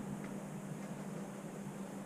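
Steady outdoor background hiss with a constant low hum, with one faint short chirp about a quarter of a second in.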